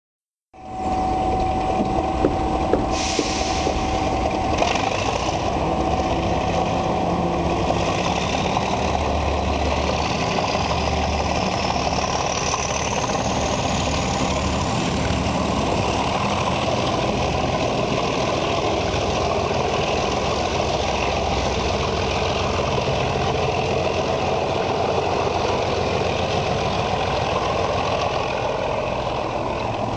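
Diesel train engine running steadily, with a whine that climbs in pitch over about ten seconds.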